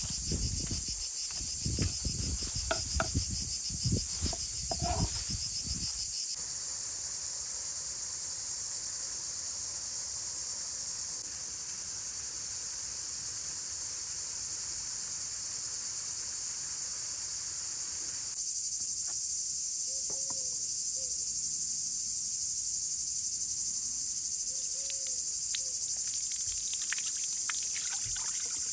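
Steady, high-pitched chirring of insects. During the first six seconds a knife cutting a fish on a wooden board adds knocks and scrapes.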